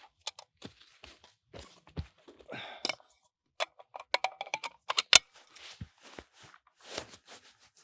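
Clicks and knocks from handling a bolt-action rifle at the shooting position, with several short metallic clicks and one sharper, louder crack about five seconds in.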